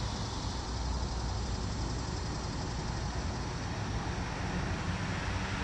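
Steady low rumble and hiss of distant traffic.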